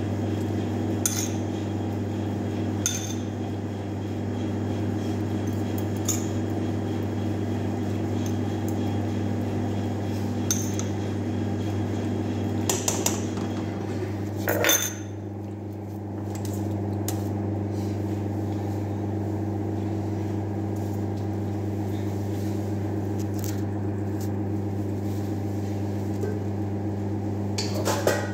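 Spoon clinking and scraping against a small bowl and a frying pan as an egg mixture is spooned into the pan, with a louder clatter about halfway through. A steady kitchen machine hum underlies it.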